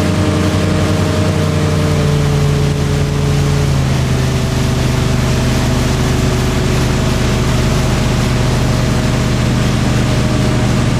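Motorboat engine running steadily at speed over a loud rush of water and wind; its pitch drops slightly a little under four seconds in.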